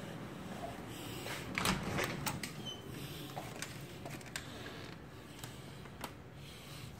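A door knob turning and the latch clicking as an interior door is opened, followed by a few scattered clicks and knocks of someone walking through.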